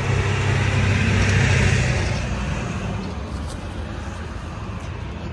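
A car driving past on the street, its sound swelling to a peak about a second and a half in and then fading away.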